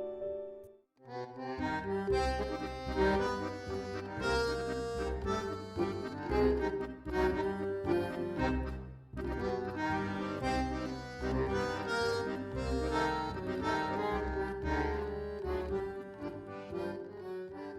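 Instrumental background music with a melody over a bass line, starting after a short break about a second in.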